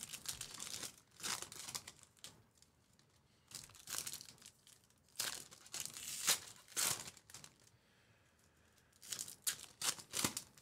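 Foil trading-card pack wrappers being torn open and crinkled by hand, in short irregular bursts with brief pauses between them.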